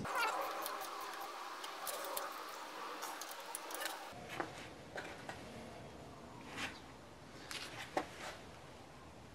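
Faint clicks and light metallic taps of a hand wrench doing up the water pump bolts on an engine block. A few sharper knocks follow, the loudest about eight seconds in.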